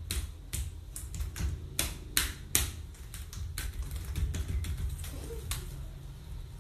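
Irregular sharp taps and clicks, a few a second, over a steady low rumble, with faint music underneath.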